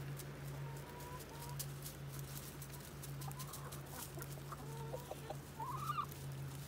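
Hens clucking softly with a few short, thin calls, one rising call near the end, over a steady low hum.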